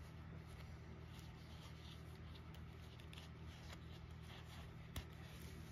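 Faint handling noises: cotton-gloved hands turning a stainless steel link bracelet, with light clicks of the metal links and one sharper click about five seconds in, over a steady low hum.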